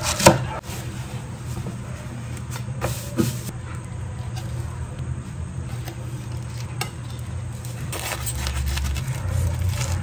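Knife sawing through the crisp breading of a deep-fried chicken roll, with the knife and fork clicking against a wooden cutting board, a sharp click coming just after the start. A steady low hum runs underneath.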